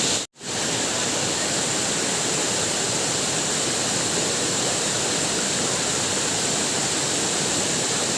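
Waterfall rushing steadily, a dense even hiss of falling water. About a third of a second in, the sound cuts out completely for a split second and fades quickly back in.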